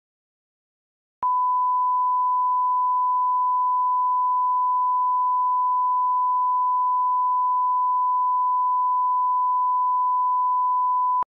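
Bars-and-tone line-up signal: a 1 kHz reference test tone, the calibration tone that goes with colour bars. It is one steady pure beep that starts suddenly about a second in, holds at an even level for about ten seconds, and cuts off just before the end.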